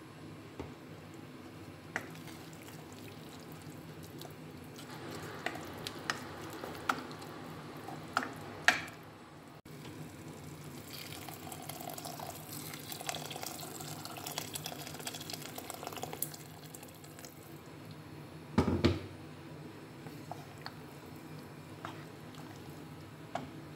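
A wooden spatula clicks and scrapes against a pot of sautéed chicken and tomato paste, then water is poured into the pot, splashing and rushing for about six seconds. A single loud knock comes later.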